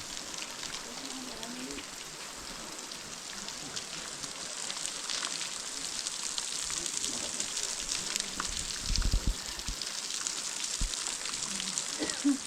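Water dripping and pattering onto rock and the trail like rain, a steady hiss full of fine drip ticks. A brief low rumble comes about nine seconds in.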